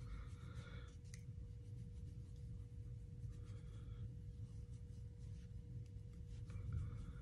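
Faint swishing of a makeup brush stroked across the skin while applying bronzer, in a few short strokes, over a faint steady hum.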